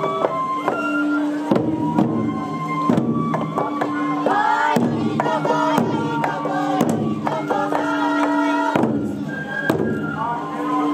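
Japanese festival music: barrel-shaped taiko drums struck about once a second, with held flute tones, over the chatter of a large crowd.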